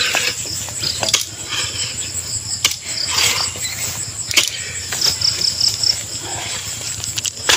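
Long iron digging bar jabbed down into hard ground at the bottom of a hole, four or five sharp strikes a second or more apart, where the diggers have just said they feel something hard. Crickets trill steadily behind it.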